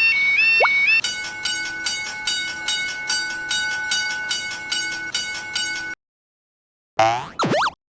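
Cartoon railroad crossing warning bell clanging about three times a second over steady held tones for about five seconds, then cutting off abruptly. After a moment of silence, a short sliding, warbling cartoon sound effect plays near the end.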